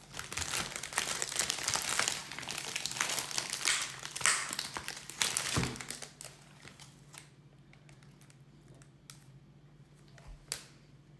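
Packaging being handled, crinkling steadily for about five seconds, then a few scattered light clicks and taps.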